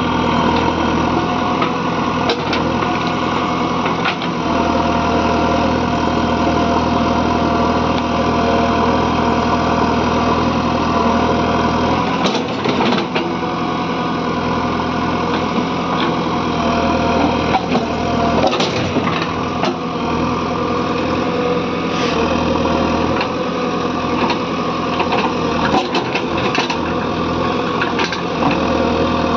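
JCB 3DX backhoe loader's diesel engine running steadily, with a few sharp knocks along the way.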